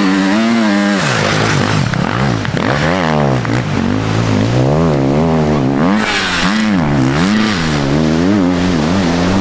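Enduro dirt bike's engine revving hard, its note rising and falling about once a second as the rider works the throttle through deep sand.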